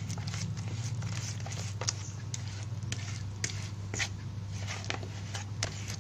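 White plastic spoon stirring a thick, wet fish-bait paste of pellets, egg and margarine in a plastic bowl: irregular scraping strokes against the bowl, over a steady low hum.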